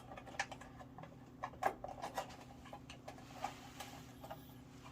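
Scattered light clicks, taps and scrapes of small parts and hand tools being handled, about half a dozen sharp ticks at irregular intervals over a faint steady hum.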